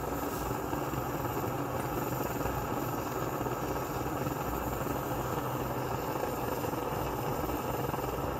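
Barthel petrol (benzine) camping stove burning at full power, its burner giving a steady, even rushing noise with a low hum underneath.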